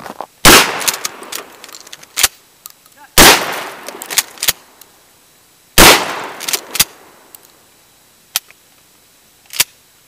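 12-gauge shotgun fired three times, about two and a half seconds apart, each loud blast trailing off briefly, with smaller clicks and knocks between the shots and two short sharp clicks near the end.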